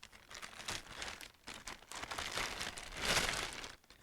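Packaging crinkling and rustling as a motorcycle sissy bar bag is unwrapped by hand, in irregular handling noises with the loudest rustle about three seconds in.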